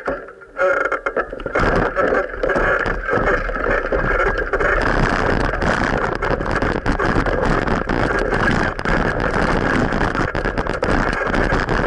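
Continuous riding noise picked up by an action camera on a moving bicycle: rumble and traffic noise with many small knocks and rattles, getting denser about five seconds in.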